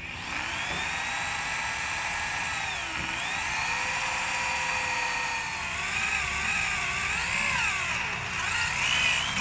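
Corded electric hand drill boring a hole through a copper spatula blade. The motor whine sags about three seconds in and wavers up and down as the bit bites, then briefly rises and stops near the end.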